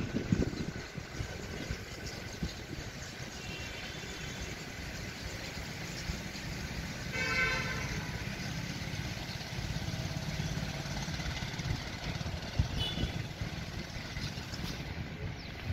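Steady low rumble of an engine running, with a horn sounding once, briefly, about seven seconds in.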